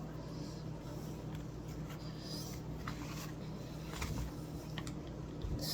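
Faint, soft squishing of homemade baking-soda-and-glue slime being mixed by hand, a few scattered small sounds over a steady low room hum.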